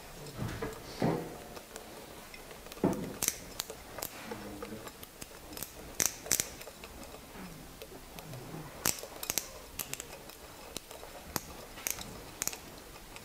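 Quiet, irregular metallic clicks and taps as a hand screwdriver with a socket bit turns a bolt fitted with a split lock washer and flat washers, fastening a rectifier-regulator's heat sink to an outboard motor.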